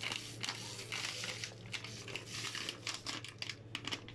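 Paper instant-pudding packet crinkling as it is tipped and shaken to pour the powder into a pot of milk: many small, irregular crackles.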